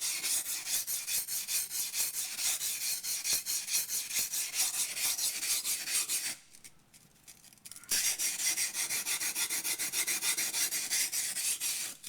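Yanagi knife blade scraped back and forth on a waterstone in quick, even strokes while its bevel is ground, stopping for about a second and a half midway before the strokes resume.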